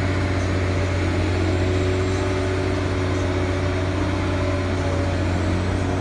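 Heavy diesel engine running at a steady speed: a deep, even hum with a few faint steady tones above it.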